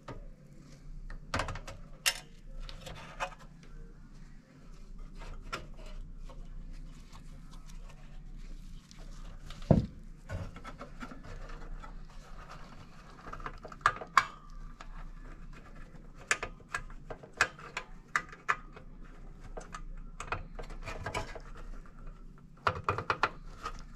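Gloved hands working the wiring inside a sheet-metal wall heater: scattered clicks, rubs and light metallic taps as wires and push-on terminals are handled, with a sharp knock about ten seconds in and a quick run of clicks near the end, over a faint steady hum.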